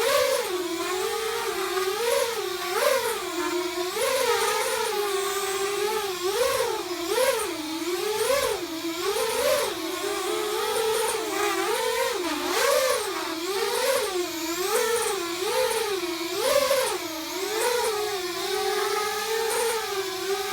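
A whining tone from a car under acceleration, wavering up and down in pitch about once a second: the weird noise the vehicle makes when accelerating.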